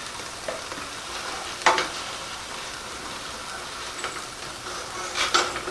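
Venison burger patties sizzling in a frying pan, a steady frying hiss with a short louder crackle about a second and a half in and a few more near the end.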